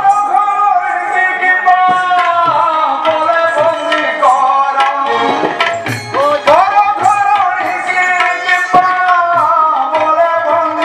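Ramlila accompaniment music: quick hand-drum strokes under a melody that slides up and down in pitch.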